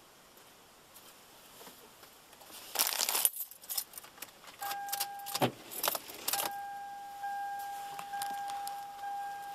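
A bunch of car keys jangling and clicking about three seconds in as the driver settles into the seat of a 2007 Toyota Sienna minivan. Then a steady, high warning tone from the dashboard sounds from about five seconds in, stops briefly, and comes back on, held with small breaks. A tone like this is the chime for a key left in the ignition or a door standing open.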